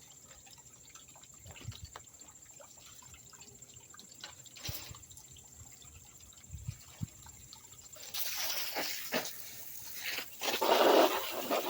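Faint handling clicks, then about eight seconds in water starts rushing loudly and keeps going, growing louder near the end: water flushing through a pond filter being backwashed.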